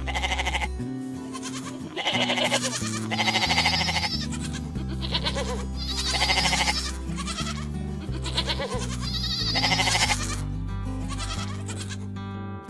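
Goats bleating, about six or seven separate wavering bleats, over steady background music.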